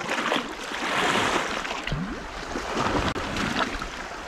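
Sea waves washing and splashing over rocks at the water's edge.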